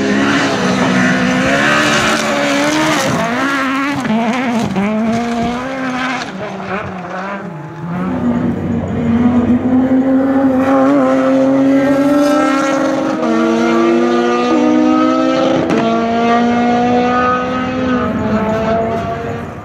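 Rally car engines at full effort: first a Volkswagen Golf rally car's engine revving hard and unevenly, pitch jumping up and down as it is driven on gravel. Then a second rally car accelerates, its engine note climbing steadily, with a couple of upshifts.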